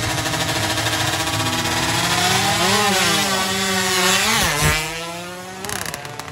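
116cc underbone drag-race motorcycles running flat out past the microphone, engine pitch sweeping up and then dropping sharply as they pass about four and a half seconds in, then fading away.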